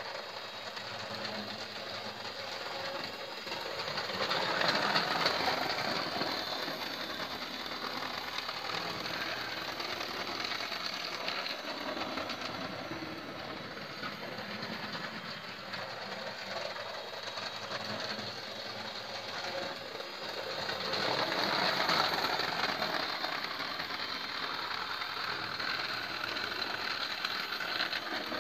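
Hornby model trains running on the layout: a steady whirr of small electric motors with wheels clattering along the track. The sound swells louder twice, about four seconds in and again about twenty seconds in, as a train runs close by.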